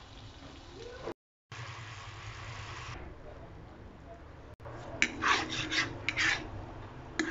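Sugar syrup boiling in a nonstick frying pan as it cooks toward caramel, a low steady bubbling. From about five seconds in, a fork scrapes quickly back and forth across the pan in a run of short rasping strokes.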